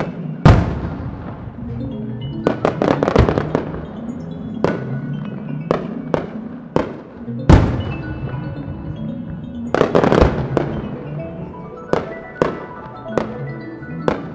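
Aerial firework shells bursting in the sky: sharp booms at irregular intervals, each trailing off, with quick clusters of several bursts about two to three seconds in and again around ten seconds in. Music plays underneath.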